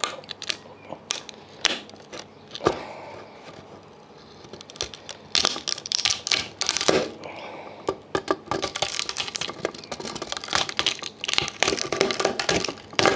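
Adjustable grips clamping and twisting a transformer off a power-supply circuit board: many sharp clicks and cracks as the transformer's plastic and its pins break away from the board, sparse at first and coming in close bunches in the second half.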